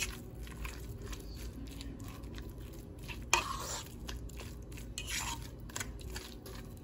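Metal fork mashing soft boiled russet potatoes in a pot, with repeated clicks and taps of the fork against the pot and two louder knocks about three and five seconds in.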